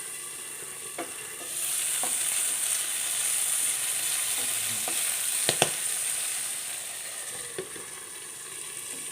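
Whole white bird's-eye chillies frying in hot coconut oil in a pan: a steady sizzle that grows louder about a second and a half in and eases again later, with a few sharp clicks. The chillies are at the stage where they burst in the oil.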